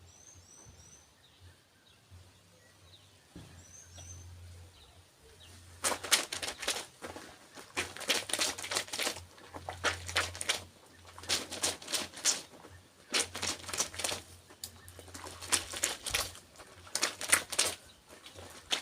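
Clothes being washed by hand: wet fabric scrubbed and rubbed together in repeated rough strokes, starting about six seconds in. Before that, a few faint bird chirps.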